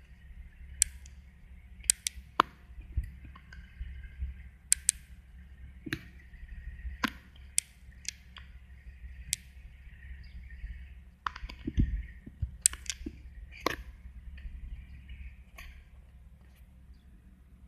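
Low steady hum of an idling car heard inside the cabin, with scattered, irregular sharp clicks and taps.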